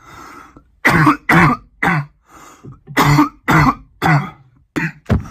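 A man coughing hard and repeatedly: about eight separate, harsh, voiced coughs in quick succession after a short breath in.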